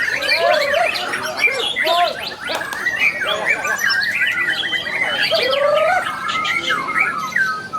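White-rumped shama singing a continuous, varied song of quick rising and falling whistles, chatters and sharp clicking notes.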